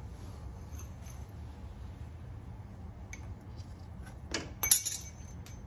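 Light metallic clinks of a driver bit and hand tools against the engine's bolts and fittings: a faint click about three seconds in and a louder cluster of clinks near the end, over a low steady hum.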